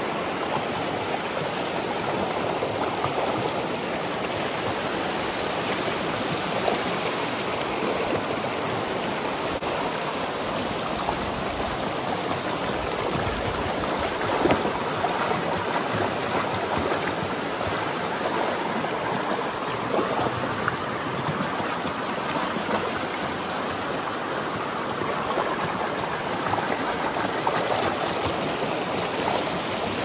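Shallow river running fast over rock ledges and small rapids: a steady rush of churning white water.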